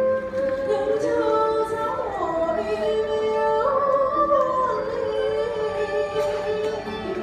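Live traditional Vietnamese music: a woman sings into a microphone in long held notes that slide between pitches, with string accompaniment.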